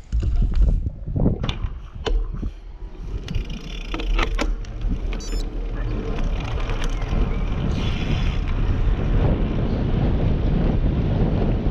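Wind on a bike-mounted GoPro's microphone as the single-speed bicycle moves off and gathers speed, the noise slowly growing louder. A few clicks and knocks from the bike and mount during the first five seconds.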